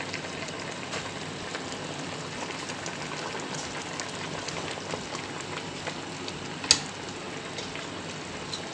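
Broth with peas and artichoke hearts bubbling at a boil in a pot: a steady hiss with small pops. A single sharp click about two-thirds of the way through.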